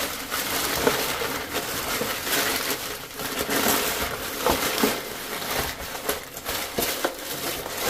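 Sheets of recycled packing paper being crumpled by hand and stuffed into a cardboard postal box as cushioning, a dense crackling rustle with many small sharp crackles.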